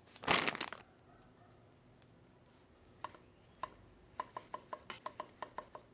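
Plastic food pack rustling briefly near the start. From about three seconds in, a kitchen knife slices cheese hot dogs on a wooden chopping board: a run of short knocks, slow at first, then several a second.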